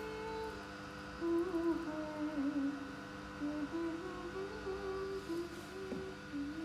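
A person humming a slow tune without words, in short phrases of stepping notes, over a steady background tone.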